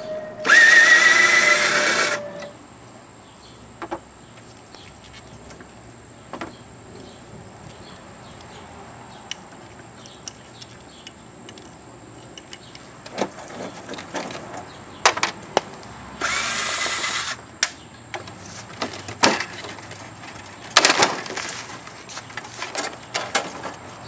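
Power drill running in two short bursts, its pitch rising as it spins up, while taking apart a window air conditioner: one near the start and one about sixteen seconds in. Scattered sharp clicks and knocks of metal parts being handled fall in between and after.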